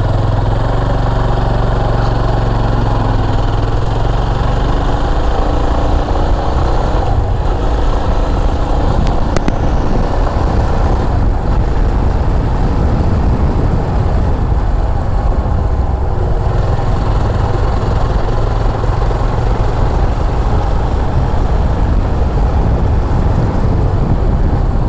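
Motorcycle engine running under way, its pitch shifting in the first few seconds, then running steadily.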